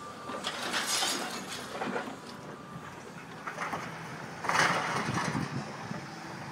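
Concrete and timber rubble cracking and crashing as an excavator's demolition grab tears into a building. There is a burst about a second in and a louder crash about four and a half seconds in.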